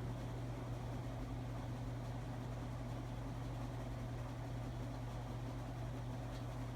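Steady low hum over a faint even hiss, unchanging throughout, with no distinct events.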